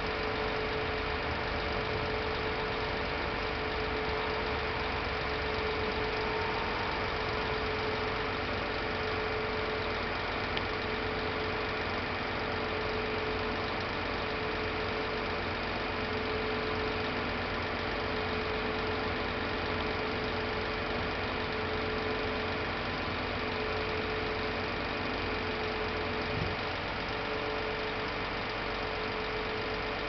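Mercedes-Benz Actros 4144's V8 diesel engine running at a steady speed, powering the Putzmeister pump's hydraulics as the boom rises, with a steady whine over the engine sound.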